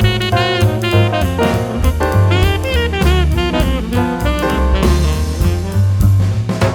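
Background jazz music: saxophone melody over bass and drum kit.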